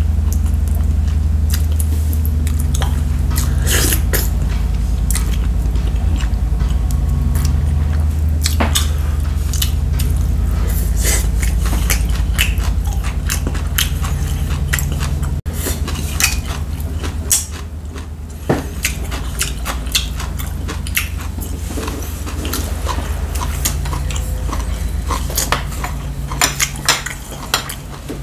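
A man chewing mouthfuls of cutlassfish stew, with repeated short clicks of chopsticks tapping the clay pot and ceramic bowls, over a steady low hum.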